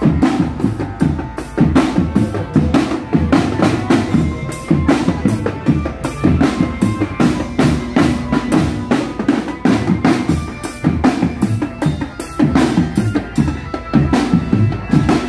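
Marching drum band playing: snare and bass drums beating a dense, continuous rhythm.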